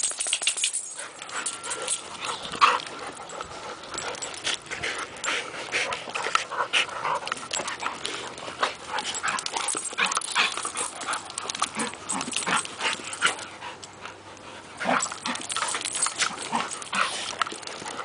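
Two dogs play-fighting, a Rottweiler mix and a long-haired grey dog: an irregular, unbroken run of short dog sounds and scuffles.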